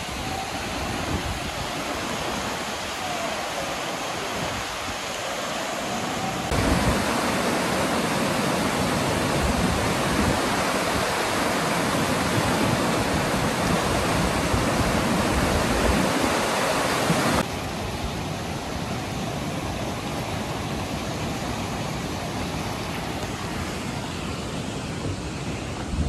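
Rushing floodwater of a muddy river swollen by typhoon rain, a steady loud rush of water. It jumps abruptly louder about six seconds in and drops back about seventeen seconds in.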